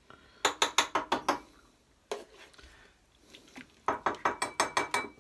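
Metal tongs clicking and clattering against the stainless steel inner pot of an Instant Pot in two quick runs of sharp clicks, with a single click between them and a faint metallic ring during the second run.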